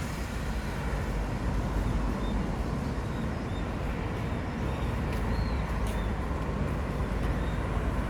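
Steady city street traffic noise from passing cars, with a few faint short high-pitched chirps now and then.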